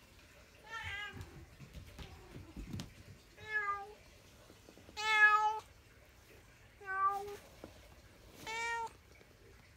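Domestic cat meowing repeatedly, five separate meows of about half a second each, spaced roughly a second and a half apart, the loudest in the middle of the run.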